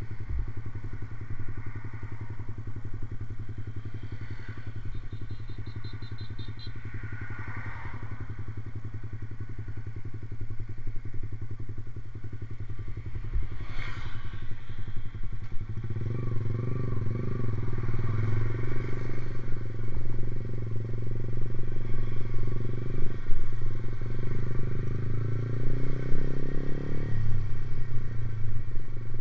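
Motorcycle engine with a racing exhaust idling with a steady, rapid low beat. About halfway through it grows louder and fuller, and the pitch rises slightly a few times near the end.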